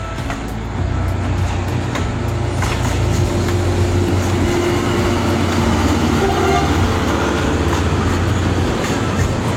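Train passing close by: a loud, steady low rumble with a few sharp knocks and a held tone in the middle.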